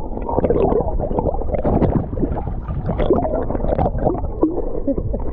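Muffled water churning and gurgling with small bubbling knocks and crackles, heard through a camera microphone held underwater in shallow surf.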